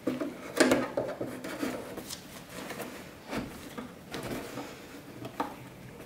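Disposable dust bag rustling and crinkling as it is handled and pushed down into the plastic bin of a robot vacuum's self-emptying dock, with a few light knocks against the housing.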